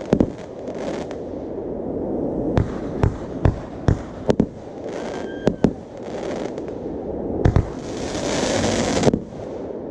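Consumer fireworks display: aerial shells and comets going off in a run of about a dozen sharp bangs and pops at irregular spacing, with crackling between. A brief whistling tone about five seconds in, and a long hissing rush from about seven and a half to nine seconds in that ends in a bang.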